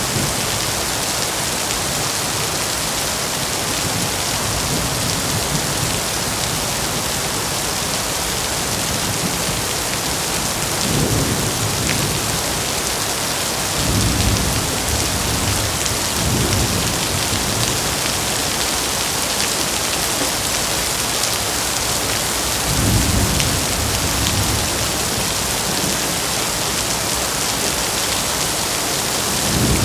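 Heavy rain pouring steadily, with low rolls of thunder rumbling about five times, most strongly past the middle and near the end.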